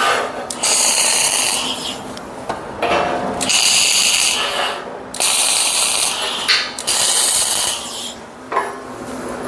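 Arc welding on steel plate: three separate weld runs of a second and a half to two and a half seconds each, a dense high crackle with short pauses between them, joining the base plate to the column of a log splitter.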